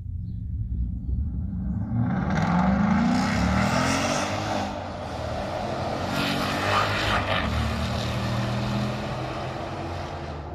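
Ford Mustang V8 with a modified exhaust, running low and steady, then accelerating about two seconds in with the exhaust note rising in pitch and getting louder. A second surge follows a few seconds later before it settles back to a steady drone.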